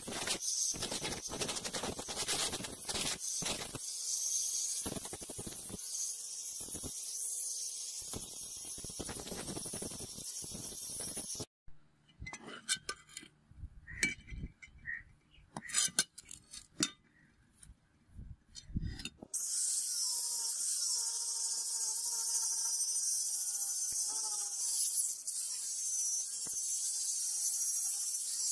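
Handheld angle grinder running with a sanding disc against a meat cleaver's brass handle, with a steady high hiss, stopping about eleven seconds in. Then a few knocks and clinks of the metal cleaver being handled on concrete, before the grinder starts again about nineteen seconds in on the steel blade.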